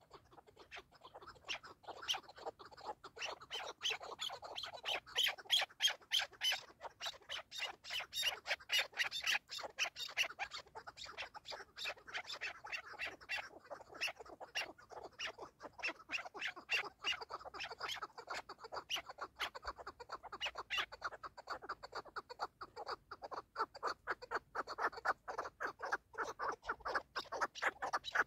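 Chukar partridges calling: a long, rapid run of short clucking notes, faint at first and building to full strength within about two seconds.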